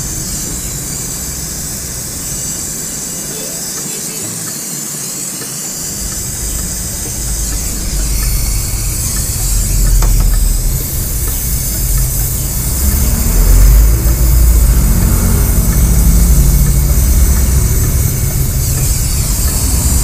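Gas brazing torch flame hissing steadily as it heats a copper joint on a refrigerator's filter drier and capillary tube, growing louder and deeper from about halfway through.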